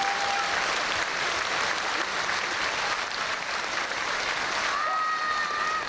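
Audience applauding steadily, with a single held high tone sounding over it at the very start and again near the end.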